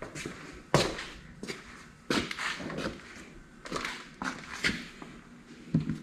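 Motorcycle saddlebag latch handle and lid being worked by hand: a string of separate sharp clicks and knocks, the loudest about a second in.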